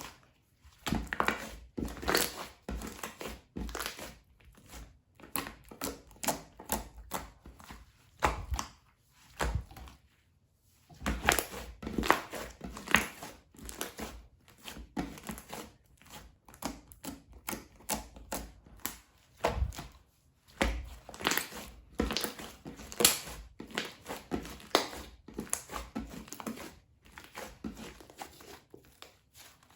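Hands squishing, pressing and stretching slime, giving irregular sticky pops and crackles in bursts, with a couple of brief pauses.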